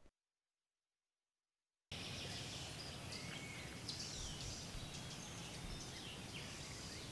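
Total silence for about two seconds, then forest ambience: a steady background hiss with scattered short bird chirps.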